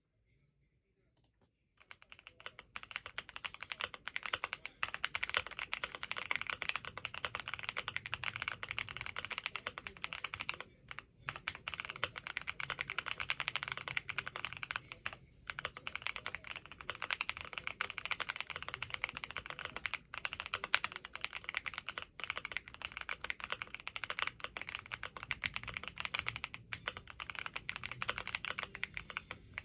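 Fast, continuous typing on a stock James Donkey R2 mechanical keyboard: a dense stream of keystroke clacks starting about two seconds in, with a couple of brief pauses.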